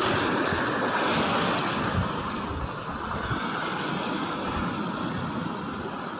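Sea surf washing with wind buffeting the microphone in irregular gusts.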